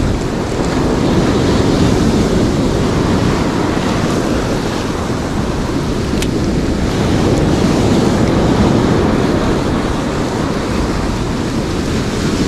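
Rough sea surf breaking and washing up the beach in a loud, steady rush, with wind buffeting the microphone.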